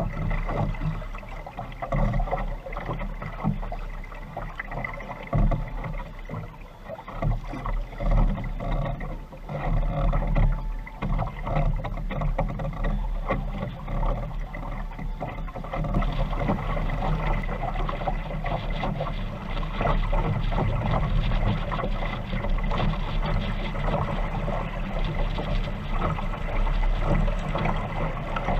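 Water rushing and slapping along the hull of a small sailing dinghy under way, with wind rumbling on the microphone. The water noise becomes steadier and louder about halfway through.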